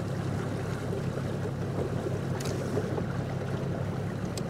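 Bass boat's outboard motor running steadily at idling speed, a low even hum. Two faint ticks come through, one about halfway and one near the end.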